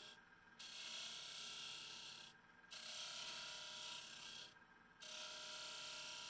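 A file scraping against a wooden ring blank spinning on a small wood lathe, in strokes of about two seconds with three short breaks as the tool is eased off. The lathe motor hums faintly and steadily underneath.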